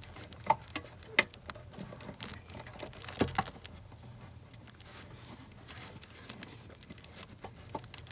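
Scattered sharp clicks and taps of hands handling plastic trim and a wiring harness in a car's door area, loudest in the first few seconds and sparser toward the end.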